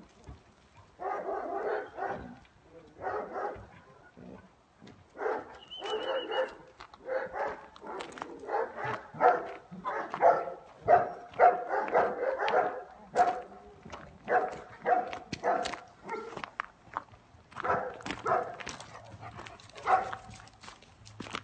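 White livestock guard dog barking over and over in short barks, coming fastest, several a second, through the middle stretch, with sharp clicks in between.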